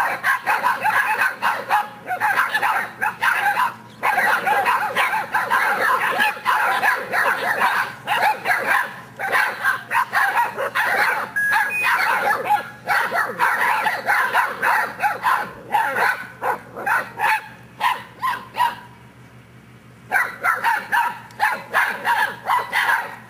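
A litter of seven-week-old English Mastiff puppies barking and yipping together, a rapid, high-pitched chorus of overlapping puppy barks. It breaks off for about a second and a half near the end, then starts up again.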